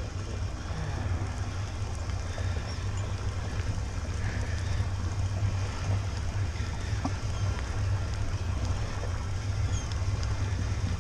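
Steady low rumble of a sportfishing boat's engine running, with water washing along the hull.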